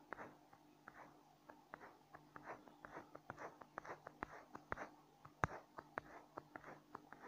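Faint, irregular small clicks and taps, several a second, with a sharper click about five and a half seconds in, over a low steady hum of room sound.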